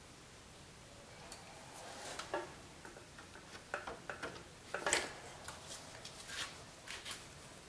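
Faint, irregular clicks and short scrapes of a hot plastic-welding iron's tip working the plastic mounting tab of a car headlight housing. The loudest click comes about five seconds in.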